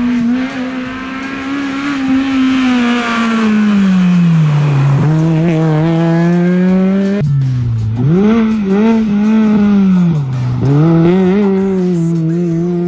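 Race-prepared Honda Civic Type R hatchback's four-cylinder engine revving hard along a rally stage, its pitch climbing under acceleration and dropping sharply twice as the driver lifts and brakes, then climbing again.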